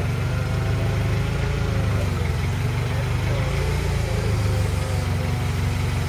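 Forklift engine running at a steady low hum while its forks lift a loaded grape bin off a trailer.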